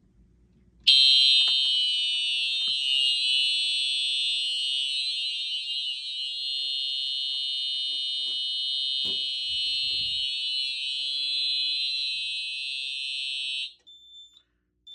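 Simplex TrueAlert fire alarm horn sounding a steady, continuous alarm tone, extremely loud, for about thirteen seconds, then cutting off suddenly as the panel is silenced. Two short high beeps follow near the end.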